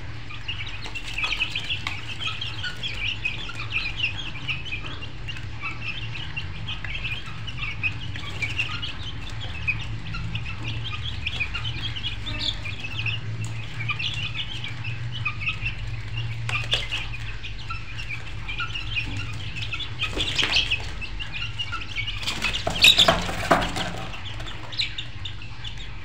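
A flock of poultry chirping and clucking without pause, over a steady low hum. Two louder, harsher bursts of calling come near the end.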